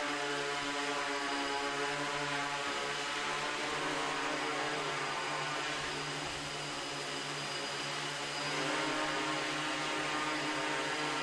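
MikroKopter multirotor drone hovering, its electric motors and propellers whirring steadily at an even pitch. The whir dips slightly in loudness past the middle and picks up again about two-thirds of the way through.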